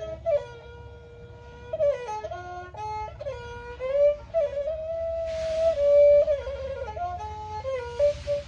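Thai bowed fiddle (saw) playing a solo melody, one line of notes that slide and bend between pitches with quick ornaments.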